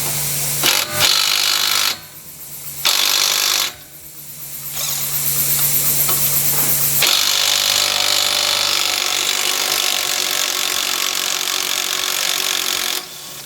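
Small cordless impact gun running on a 10mm nut, in three runs: two short ones, then a long one lasting about eight seconds.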